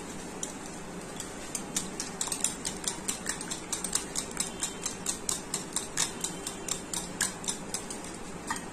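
Wire whisk beating eggs and sugar by hand in a glass bowl, its wires clicking against the glass in a quick, even rhythm of about five light clicks a second. The clicking starts a little over a second in and stops near the end.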